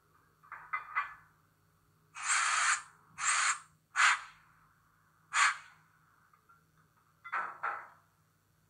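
Coupling sound effect from the LeoSoundLab sound project on the ESU LokSound V5 decoder in an H0 model of the ÖBB 2143 diesel locomotive, played through its small speaker. A few metallic clanks come first, then one long and three shorter hisses of air, and another pair of clanks near the end.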